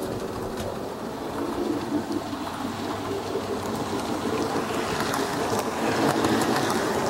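H0 scale model train running on the track, a steady rumble of motor and wheels that grows louder as it approaches and passes close by, with a few light clicks.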